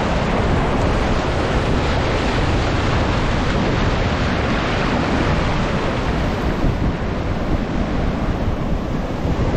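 Surf washing up a sandy beach and draining back, with wind buffeting the microphone.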